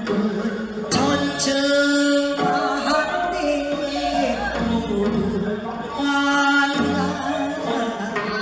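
Gyeonggi folk song (Gyeonggi sori) sung by a group of voices in long, wavering held notes.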